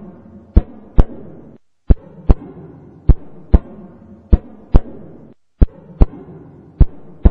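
Heartbeat sound effect: a sharp double beat, lub-dub, repeating about once every one and a quarter seconds (six beats) over a low murmur.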